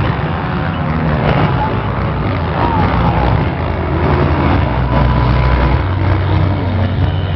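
Motocross bikes' engines running and revving, several at once, in a continuous loud mix.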